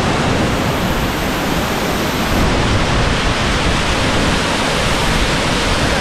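A waterfall in full flow, swollen by heavy rain, making a loud, steady rush of water.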